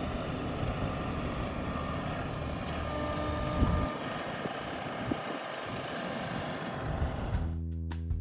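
An engine running steadily, with a brief louder knock about three and a half seconds in. Near the end it cuts to strummed acoustic guitar music.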